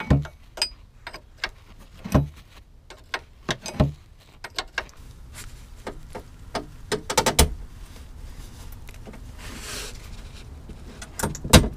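Irregular metallic clicks and clanks of a wrench working the bolts at a car's rear hub. A quick run of clicks comes about seven seconds in and a sharp clank near the end.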